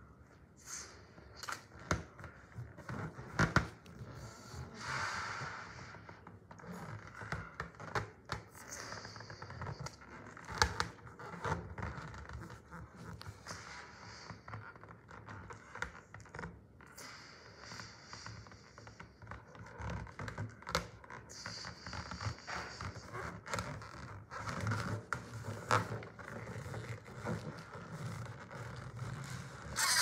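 Irregular scraping, scratching and clicking handling noises, with short hissy rubs in between.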